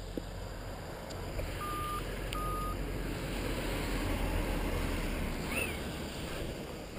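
Wind buffeting the microphone with rustling as paraglider lines are gathered in tall grass, growing louder about a second and a half in. Two short, even electronic beeps sound close together near the two-second mark.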